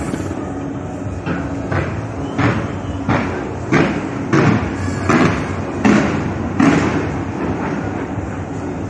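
Fireworks going off in a steady series of about nine booms, roughly one every two-thirds of a second, over a constant background rumble.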